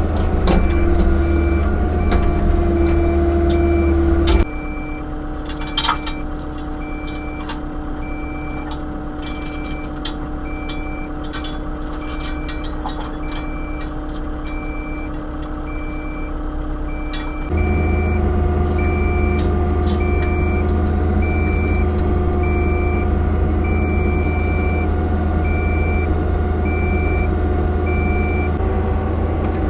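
Diesel engine of a compact construction machine running steadily, with its backup alarm beeping about once a second. The engine sound shifts abruptly, quieter and thinner about four seconds in, then fuller again a little past halfway. The beeping stops shortly before the end.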